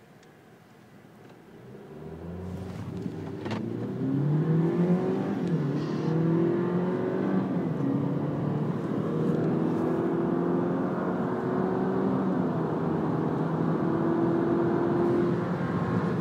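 Car engine accelerating hard from a standing start in a street drag race, heard from inside the cabin: it comes in about two seconds in and climbs in pitch, dropping back at each of several gear changes.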